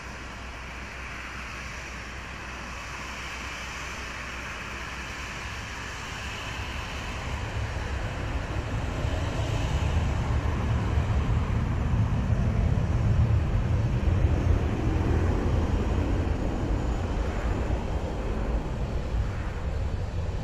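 Jet engines of a Turkish Airlines airliner spooling up, with a deep rumble that swells from about six seconds in, is loudest in the middle and eases a little near the end, over a steady hiss.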